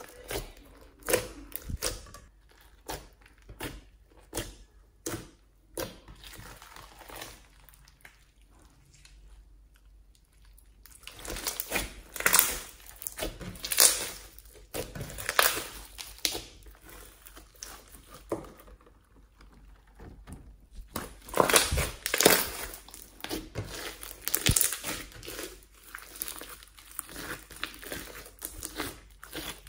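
Hands squeezing and kneading homemade slime mixed with foam beads and glitter, giving a run of short, irregular sticky crackles and squelches. There are quieter pauses about a third of the way in and again about two-thirds through.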